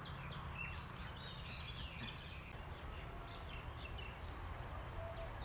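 Birds chirping and calling, a busy run of short, quick notes, over a low steady rumble.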